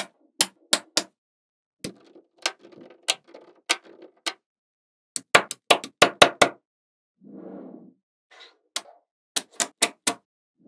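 Small magnetic balls clicking sharply as they snap together one by one, with a quick run of louder clicks around the middle and softer rattling clicks in between.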